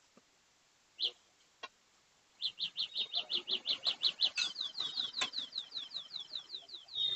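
A bird calling in a rapid, even series of high chirping notes, about five a second, starting a little over two seconds in. A few sharp knocks are heard alongside.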